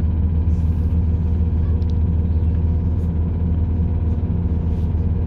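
Steady low drone of a British Rail Class 170 Turbostar diesel multiple unit on the move, heard from inside the carriage: the underfloor MTU six-cylinder diesel engine and wheel and rail running noise at an even pace. There is a brief high hiss about half a second in and a few faint clicks.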